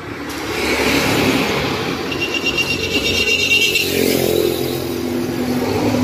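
A motor vehicle running close by, growing louder over the first second and then holding steady, with a thin high whine in the middle.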